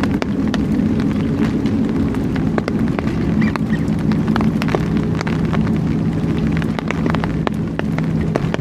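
A steady low mechanical hum holding a few pitches, with many scattered crackling clicks over it.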